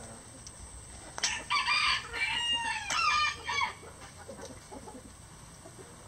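A rooster crowing once: a single crow of about two and a half seconds, starting just over a second in.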